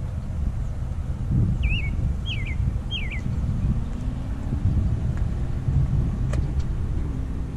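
Steady low outdoor rumble, with a bird calling three short falling chirps about two seconds in and a single sharp click near the end.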